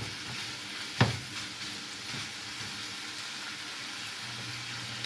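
Chopped bacon sizzling as it fries in a pan, a steady hiss, with one sharp click about a second in.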